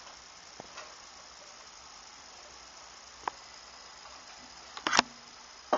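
Cookware being handled: a couple of faint clicks, then a short, louder clatter about five seconds in, over a steady high-pitched whine.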